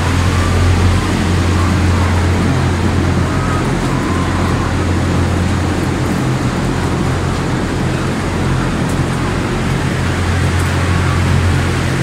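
Large poultry-shed exhaust fans running: a loud, steady rush of moving air over a low, even motor hum.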